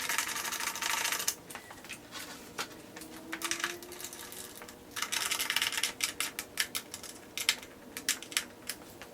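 Hand tools fastening a motorcycle's mirror mounting bolts: short bursts of rapid clicking, then a run of single sharp clicks in the second half.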